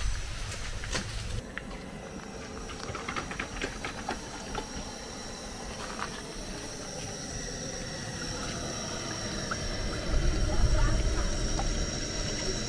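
An electric blender's motor running and cutting off about a second and a half in. After it come scattered light clicks and knocks, over a faint steady high whine.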